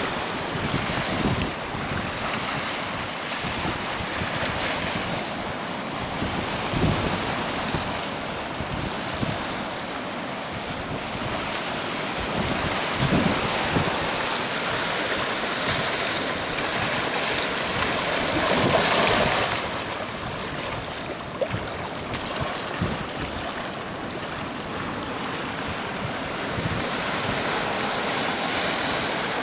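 Pacific surf washing in over seaweed-covered rocks and sand, a steady wash of water that swells louder about two-thirds of the way through. Wind buffets the microphone with a few low thumps.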